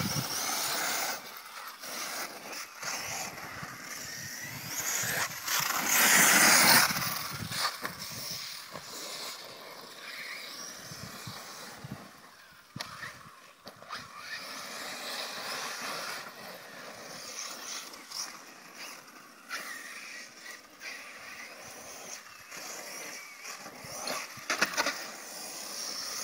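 Radio-controlled cars driving on a dirt track: a rough, uneven whirring and rolling noise that swells loudest about six seconds in, with scattered short knocks and clatters as the cars run over the bumps.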